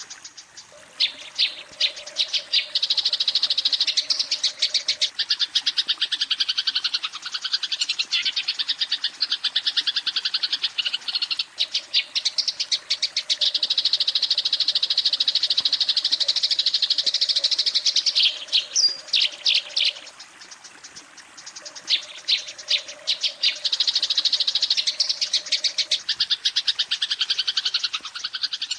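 Eurasian tree sparrow chattering its fighting call at a rival: long runs of very rapid, high chirps, broken by a short pause about two-thirds of the way through.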